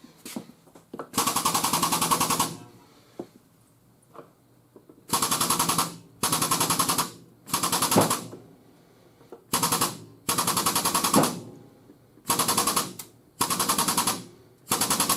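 Frame machine's pump chattering in about nine short bursts, each a fast rattle of around a second, as it puts pulling pressure on the damaged quarter panel.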